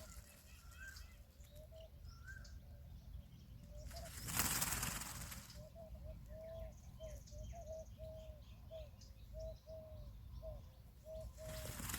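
Peafowl wings flapping, heard as two loud rushes of noise: the first about four seconds in and lasting over a second, the second starting near the end. Between them a bird gives a run of about a dozen short, low, evenly spaced calls, with faint chirps of small birds.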